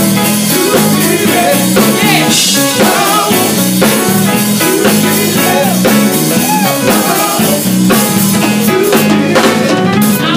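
Live gospel band playing at full volume: drum kit keeping a driving beat over bass and keyboards.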